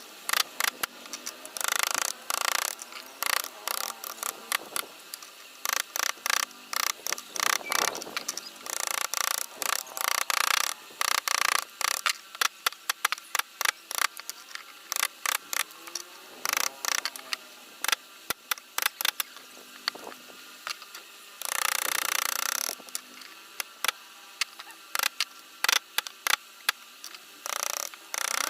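Hand wood-carving chisels cutting into wood: a rapid, irregular run of sharp taps and clicks, broken by short scraping strokes of the blade through the grain.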